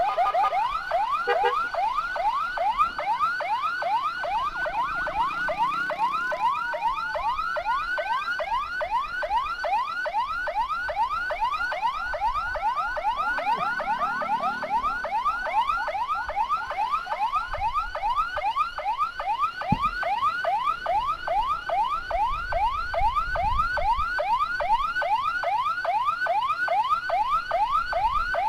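Electronic siren yelping through a horn loudspeaker, a fast rising sweep repeated about three times a second without a break. Between about four and nine seconds in, a second, slower siren tone glides down and back up beneath it.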